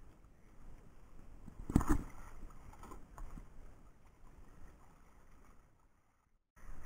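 Sea water lapping around a small outrigger boat, a low steady wash with a single loud knock about two seconds in and a couple of faint ticks soon after. The sound drops out for a moment near the end.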